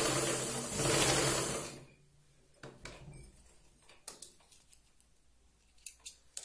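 Domestic sewing machine stitching a lapped seam, running steadily and then stopping a little under two seconds in. A few small clicks and rustles follow as the cloth is drawn out from under the presser foot and the thread is cut.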